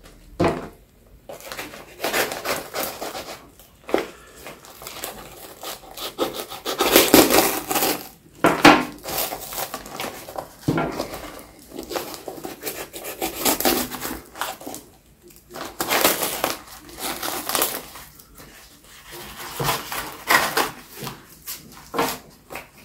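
Heavy taped kraft paper and a plastic liner being torn and peeled back by hand, rustling and crinkling in irregular bursts. The loudest tearing comes about seven and eight and a half seconds in.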